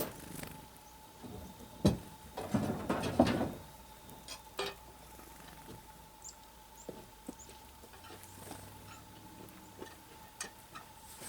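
Scattered knocks, clicks and a short stretch of rustling clatter as things are handled, with one sharper knock about two seconds in.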